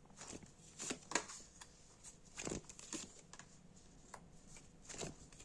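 Tarot cards being handled on a table: a few soft, scattered rustles and light taps as cards are turned and laid down.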